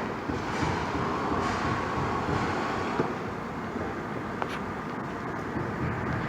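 Steady road traffic noise with the whoosh of passing vehicles and a couple of faint clicks.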